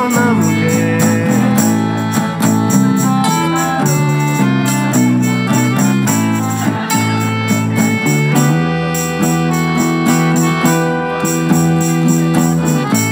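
Instrumental passage of a small acoustic band: a piano accordion holds chords over strummed acoustic guitar, with a steady, fast, tambourine-like percussion beat.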